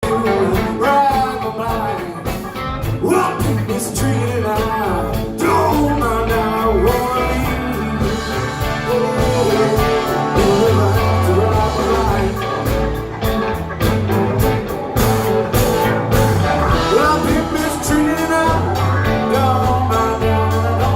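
Blues-rock band playing live, with a stepping bass line, drums and a guitar or voice bending between notes.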